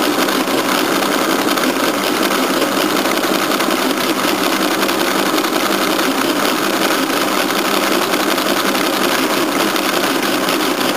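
Friden SW10 electro-mechanical calculator running an automatic division: its electric motor drives the gearing and register wheels in a steady, rapid mechanical clatter.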